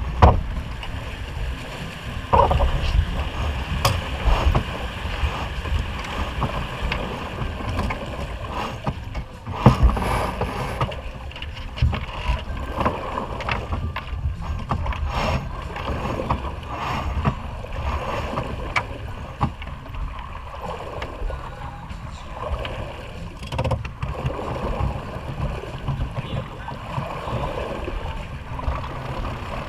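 Sailing yacht under way: wind buffeting the deck-mounted microphone and water rushing along the hull, with knocks and clicks from crew working the winches and lines, and two heavier thumps, one at the very start and one about ten seconds in.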